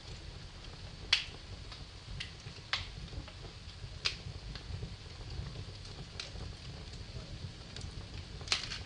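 Wood fire crackling in a fireplace: sharp pops every second or two, the loudest about a second in, over a low steady rumble of the flames.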